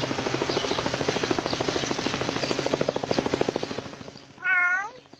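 A cat: a fast, rhythmic rasping for about four seconds, fading near the end, then one short meow.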